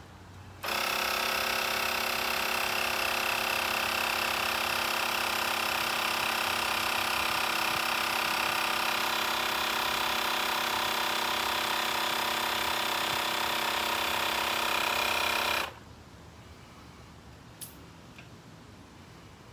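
Cordless handheld air compressor inflating a bicycle tire: its motor starts abruptly about a second in and runs with a steady whine for about fifteen seconds, then cuts off suddenly. A single small click follows near the end.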